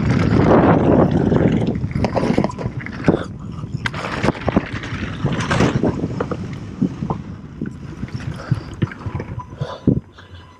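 Mountain bike descending a dirt and gravel trail, heard from a helmet-mounted camera: wind rushing over the microphone and tyres rolling on loose dirt, with the bike's chain and frame rattling in many sharp knocks. The rush is loudest for the first couple of seconds and drops near the end.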